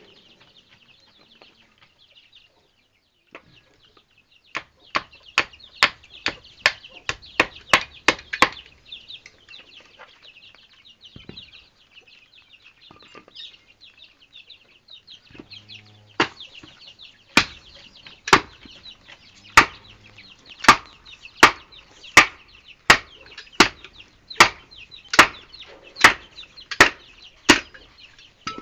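Repeated blows of a hand tool chopping into a block of wood. A quick run of strikes comes a few seconds in, then, after a pause, a steadier series of about one blow every second. A continuous high chatter of birds runs behind the blows.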